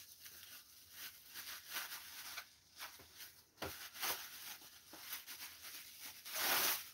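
Bubble wrap and plastic packaging crinkling and rustling as a boxed slot car is unwrapped by hand, in quick irregular crackles, with a louder stretch of rustling near the end.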